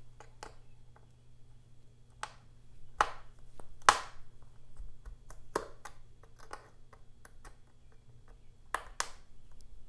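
Scattered light clicks and taps of a precision screwdriver working the tiny pentalobe screws on a MacBook Air's aluminium bottom cover, the loudest about four seconds in and two close together near the end.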